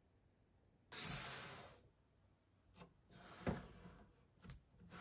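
Faint handling noises: a short rustle about a second in, then a few light clicks and knocks, with one sharper knock near the middle.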